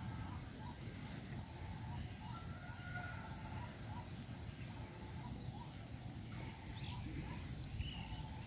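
Rural outdoor ambience: scattered short bird chirps over a steady high thin whine and a low rumble.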